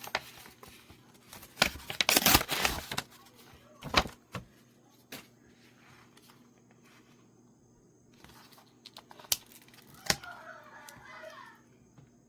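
Paper or plastic mail packaging being torn open by hand, with a loud stretch of ripping about two seconds in. Scattered taps, crinkles and handling clicks follow.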